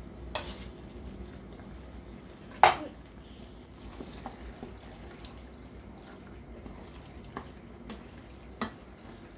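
A utensil knocking and clinking against a pan a few times, the loudest knock about two and a half seconds in, over faint bubbling of pasta sauce cooking in the pan.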